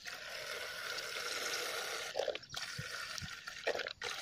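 Milk pouring from a small carton into a plastic basin of milk: a steady splashing stream for about two seconds, then breaking into shorter spurts with brief gaps.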